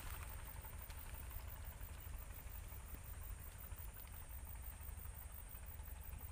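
Faint rustling of ferns and tall grass as a person pushes and crouches through them, over a steady low rumble and a constant high thin whine.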